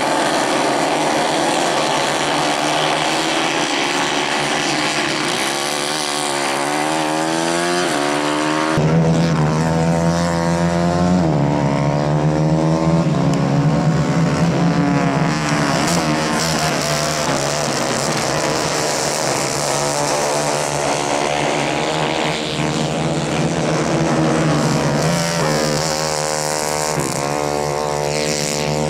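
Several racing kart engines running together, their pitch rising and falling as the karts accelerate out of corners and back off into them. A deeper, louder engine drone comes in sharply about nine seconds in.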